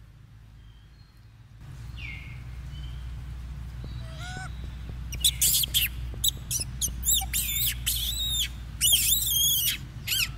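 A rapid series of shrill, high-pitched chirping calls, each arching up and down in pitch, starting about halfway through over a steady low hum.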